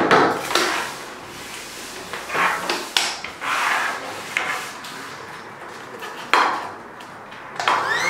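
Hands brushing and rubbing spilled rice grains across a wooden tabletop: scattered scratchy rustles with light knocks. Near the end a toy cordless vacuum's small motor starts up with a rising whine.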